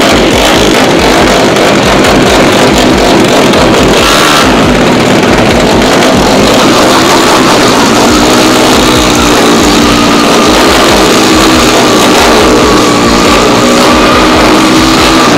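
Racing motorcycle with a small horizontal-cylinder engine running at the drag-strip start line, held at steady revs through the second half.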